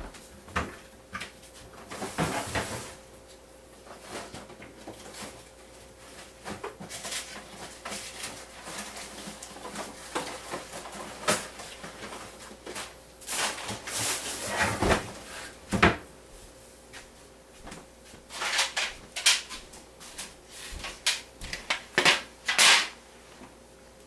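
A table fork pricking the top crust of an unbaked apple pie: irregular soft clicks and scrapes from the tines, in bunches of quick strokes.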